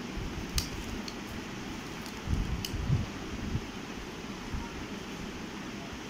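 Handling noise as a plastic fashion doll is moved about close to the microphone: a few light clicks and soft low bumps over a steady background hiss.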